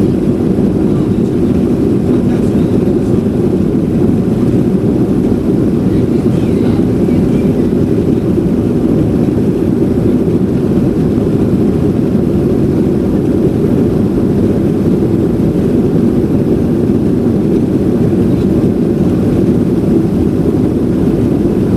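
Steady cabin noise of a Boeing 737-800 in the climb: its CFM56-7B jet engines and the airflow over the fuselage, heard from inside as an even low rush.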